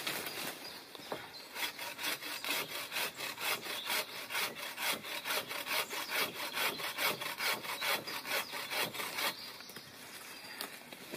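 Bow saw cutting through a thin wooden pole, in quick, even back-and-forth strokes, about four a second. The strokes start light, settle into a steady rhythm about a second and a half in, and stop around nine seconds in.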